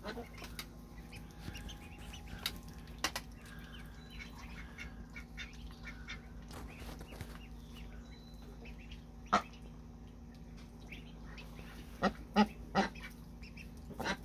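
Ducks and newly hatched ducklings calling: short scattered calls, with a louder one about nine seconds in and three more in quick succession around twelve seconds.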